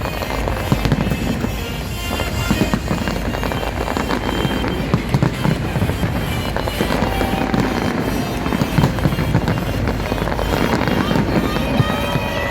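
Fireworks bursting in quick, irregular succession over a continuous rumble, with loud music playing alongside and crowd voices.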